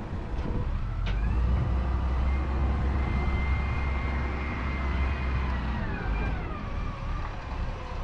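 Wheel loader's diesel engine running under load, swelling about a second in as the bucket is raised, with a whine that rises, holds, and drops back about six seconds in. A couple of sharp clicks near the start.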